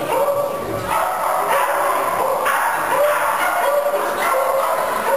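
A dog barking repeatedly, short yappy barks about twice a second with no let-up.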